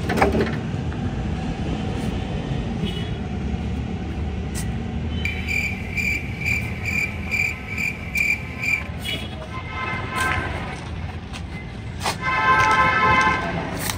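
Steady low traffic rumble, with a high beep repeated about three times a second for a few seconds midway. Near the end a horn is held for about a second and a half.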